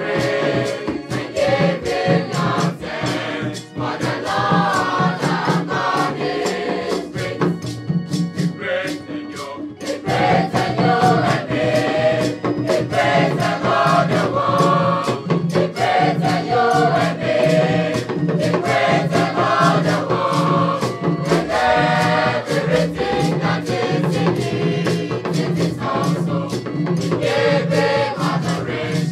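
Mixed-voice school choir singing in parts, accompanied by hand drums and a gourd shaker keeping a steady beat. The voices thin out for a few seconds near the middle, then come back full.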